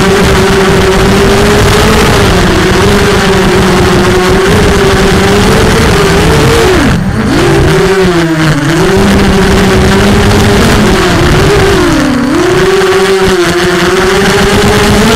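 Four Cobra 1960kv brushless motors spinning DAL propellers on a Bolt 250 FPV quadcopter in flight: a steady loud whine over a rush of noise, wobbling in pitch with throttle. The whine drops sharply about seven seconds in and again near twelve seconds as the throttle is cut, then climbs back.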